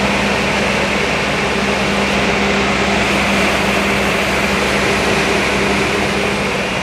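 Mori Seiki SL-200SMC CNC lathe with its main and sub spindles spinning at high speed, around 3,000 rpm or more, during a spindle run-up test. It gives a steady, even hum with a high whine over it, holding one speed throughout.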